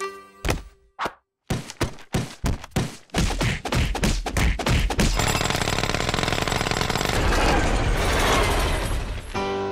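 Cartoon stomping sound effects: a run of sharp thuds that come faster and faster, merging about halfway through into a continuous rattling clatter that cuts off shortly before the end.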